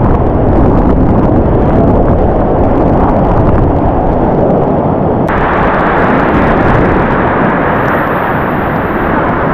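Whitewater rapids rushing around a kayak, heard up close from a camera on the boat: a loud, dull, steady rush of water that turns abruptly brighter about five seconds in.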